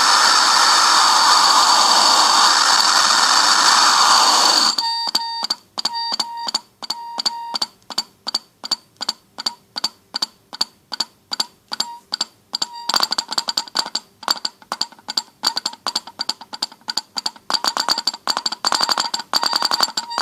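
Homemade electronic noise circuit, powered by fruit, giving a steady hiss for about five seconds. It then switches to rapid electronic beeping pulses, about three a second. These grow faster and denser a little past halfway.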